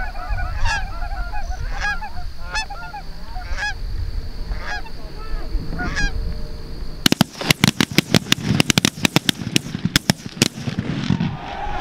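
Canada geese honking overhead for several seconds, then about seven seconds in a rapid volley of many shotgun blasts from a group of hunters firing together for about three seconds. A few more goose calls follow.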